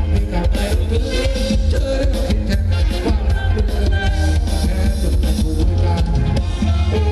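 Live band playing upbeat Thai ramwong dance music with a heavy bass beat.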